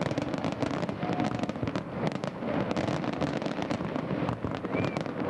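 Fireworks crackling and popping in a dense, unbroken stream of small sharp reports.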